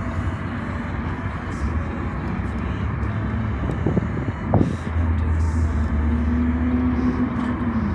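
Road noise from a moving car: a steady low rumble of tyres and engine with traffic passing alongside, and a steady low drone from about five seconds in.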